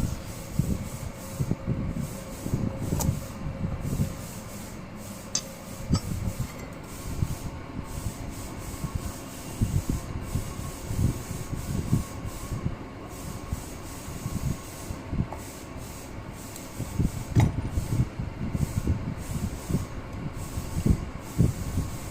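Oiled clutch friction plates and steel plates being handled and stacked into a motorcycle clutch basket: irregular rubbing and light knocks, with a few sharp metal clicks.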